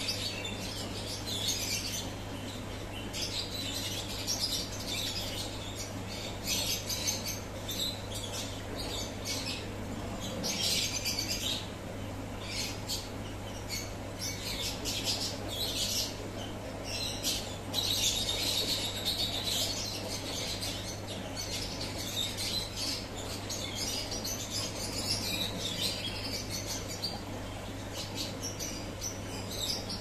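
Small birds chirping and twittering in repeated short spells, over a steady low hum.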